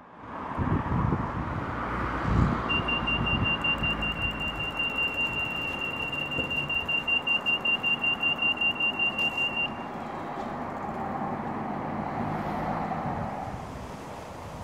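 Pedestrian crossing signal beeping: a rapid, high-pitched pulsed beep for about seven seconds, starting a few seconds in, signalling that it is safe to cross. Road traffic passes underneath.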